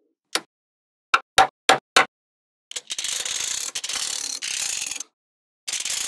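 Small magnetic balls clicking against each other as they snap into place: one sharp click, then four sharp clicks about a third of a second apart, then about two seconds of rapid clicking rattle as rows of balls roll and snap onto the stack, with another rattle starting near the end.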